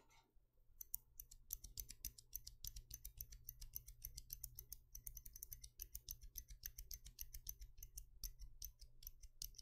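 Heavier Zilent silent tactile mechanical keyboard switches pressed over and over by finger, giving a quick run of faint, soft clicks several times a second from about a second in. They are truly silent switches, quiet and smooth with no sharp click.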